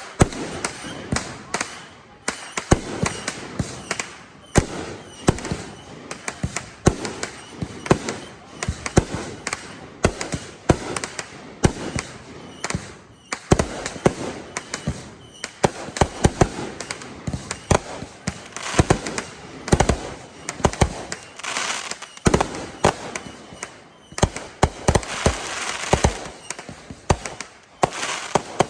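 Fireworks going off in rapid, dense succession as 500-gram cakes and 3-inch display shells fire: a continuous string of sharp bangs, with stretches of crackling in the second half.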